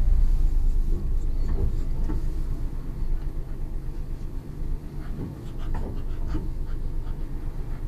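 A dog panting with its mouth open inside a moving car, over the car's steady low rumble.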